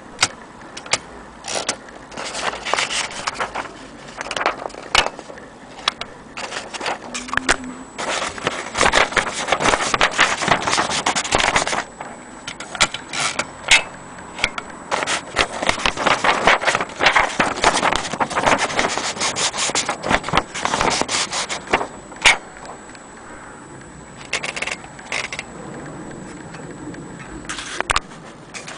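Vintage Corona portable typewriter being typed on: sharp key clacks come in fast runs with short pauses between them, and single strokes here and there.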